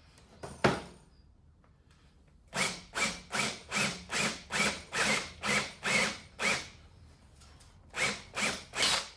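Power drill worked in short, evenly spaced bursts of about two a second into a thick timber door header, countersinking for a screw head. It pauses, then gives three more bursts near the end.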